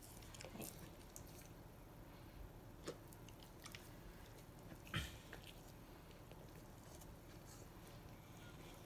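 Great Pyrenees taking food from a hand and chewing it, faint mouth and chewing sounds with a few soft clicks, the loudest about five seconds in.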